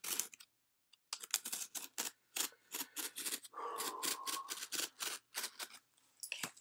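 A cardboard shipping box being opened by hand: a quick, uneven run of crinkling, tearing and scraping of cardboard and packing, with a longer rip a little over halfway through.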